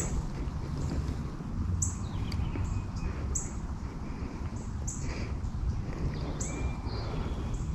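Small birds chirping, short high calls every second or so, over a steady low rumble of wind on the microphone.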